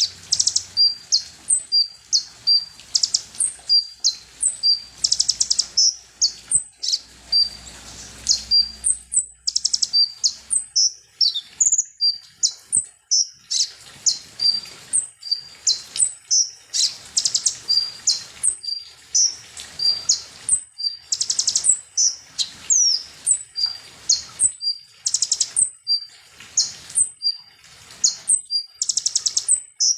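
Konin (kolibri ninja) sunbird singing without pause: rapid high, thin chips and short sweeping notes mixed with fast buzzy trills, a lure song used to fire up other konin.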